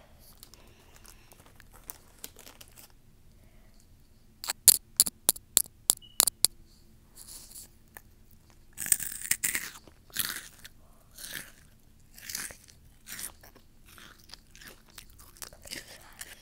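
Close-miked crunching and chewing of crunchy Flamin' Hot Cheetos. There is a quick run of sharp, crisp crunches about four to six seconds in, then slower, irregular crunching chews.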